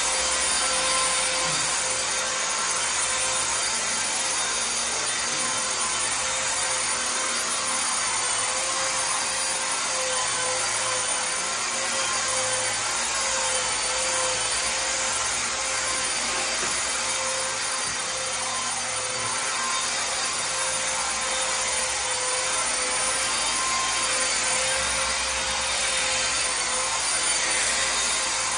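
Continuous sanding of a faux-marble wall finish with very fine 3000-grit sandpaper, polishing it toward a mirror shine. A steady rubbing hiss with a faint even hum underneath.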